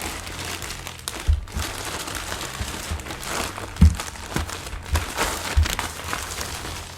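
Shipping packaging being opened by hand: continuous crinkling and rustling of wrapping, with a few dull knocks as the package is handled.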